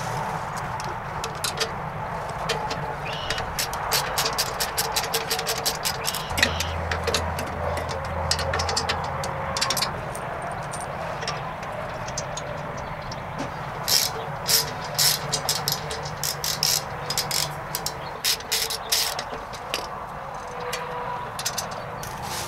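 Ratchet wrench clicking in quick runs as bolts are tightened, with a pause in the middle, over a steady low hum.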